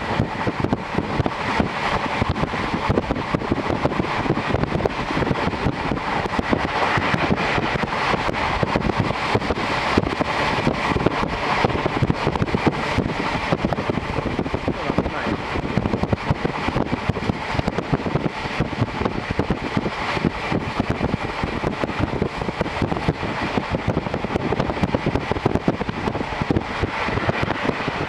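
Running noise inside a JR Hokkaido Series 711 electric train car at speed, heard with the window open: a steady rush of wheels on the rails and wind.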